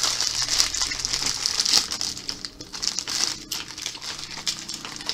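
A foil-lined snack chip bag crinkling as it is pulled open and handled, loudest over the first couple of seconds, then lighter rustling as a hand goes into it.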